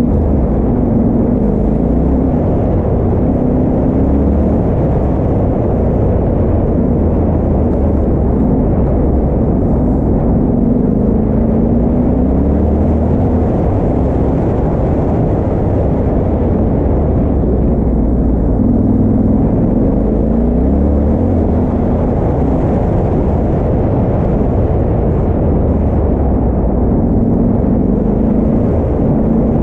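Yamaha Ténéré 700's parallel-twin engine running under way, its pitch rising and falling with the throttle.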